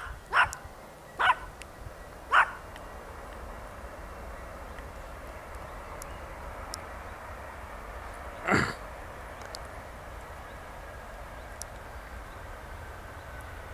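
A dog barking: four sharp barks in the first two and a half seconds and a last one about eight and a half seconds in. Underneath, a steady hiss with a faint high whine slowly falling in pitch from the engines of an Emirates Boeing 777 on the runway.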